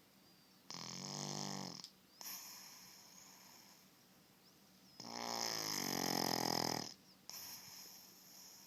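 Pug snoring: two loud, rattling snores about four seconds apart, each followed by a softer, airy breath.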